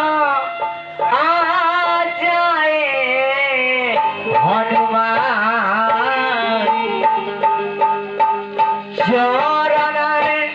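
A man singing a devotional song to Hanuman into a microphone over musical accompaniment, his voice sliding and wavering through long held notes.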